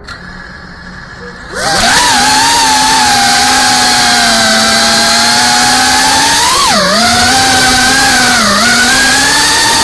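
FPV racing quadcopter's brushless motors spinning up with a sudden loud whine about a second and a half in, then holding a steady high-pitched drone. The pitch swoops up and drops back a couple of times as the throttle changes.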